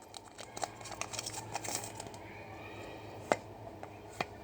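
Trading card pack wrapper crinkling and cards being handled, with a few small clicks and two sharper clicks in the second half.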